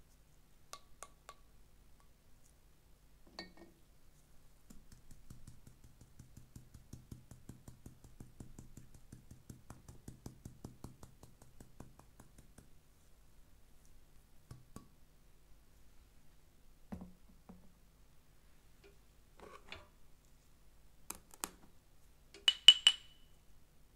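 Glass spice shaker of ground cinnamon being shaken over a plate in a rapid run of soft taps lasting several seconds, with scattered small clicks. Near the end, a few sharp clinks of tableware, the loudest sounds, as the ceramic honey pot and wooden honey dipper are handled.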